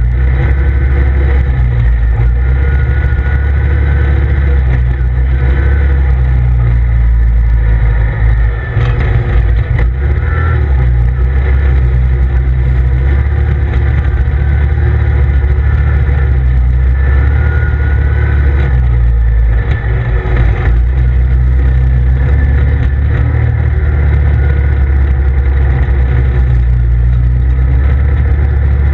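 The engine of a CF Moto ZFORCE 800EX side-by-side running steadily under way on a dirt trail, with a heavy, even low rumble. The level dips briefly about eight seconds in and again about twenty seconds in.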